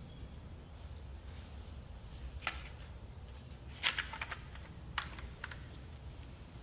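A few sharp clicks and light clatter, one about two and a half seconds in, a quick cluster near four seconds and two more around five seconds, over a low steady rumble.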